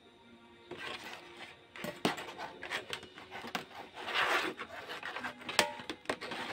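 Hands moving cables, test leads and a mains plug around on a workbench: rubbing and rustling with scattered clicks and knocks.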